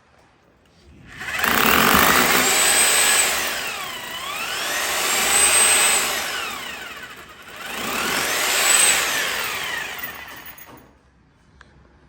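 Electric power drill running in three spells, its motor speed rising and falling, then stopping about eleven seconds in.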